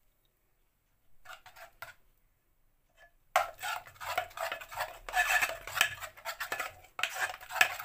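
Metal spoon stirring thick marinade in a stainless-steel bowl: a few short scrapes, then from about three and a half seconds in, fast continuous scraping and clinking of spoon against steel.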